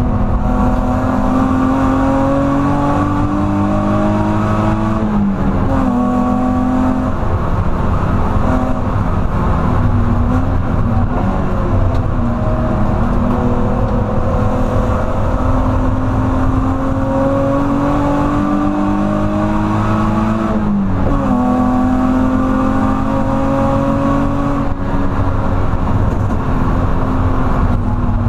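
BMW E46 330's 3.0-litre straight-six engine under hard track driving, heard from inside the caged cabin. The engine note climbs steadily under acceleration and falls sharply about five seconds in and again about twenty seconds in, over a constant rumble of tyre and road noise.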